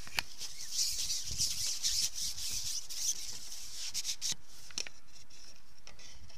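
Carbon fishing pole rubbing and scraping as it is handled and slid over its pole rest, with a few sharp clicks; the scratching is heaviest in the first four seconds and eases off after.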